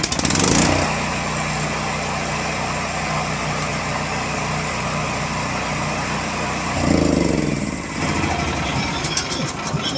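Blackstone BS10800D gasoline generator engine running. It speeds up in the first second, holds a steady speed, then surges and settles again about seven seconds in.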